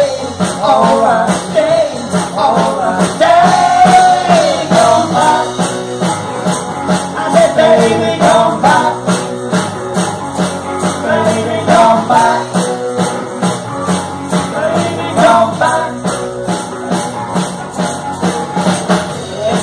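Live band playing rock and roll on electric guitars and a drum kit, with a steady beat.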